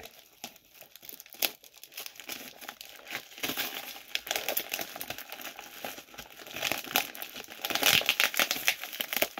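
Crumpled paper wrapping crinkling and tearing as hands pull a package open. It starts sparse, grows denser and louder from about halfway, and is loudest near the end.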